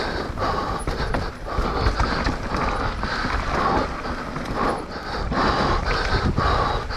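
A mountain biker breathing hard in quick, rhythmic gasps, about two a second, over a steady low rumble from the ride.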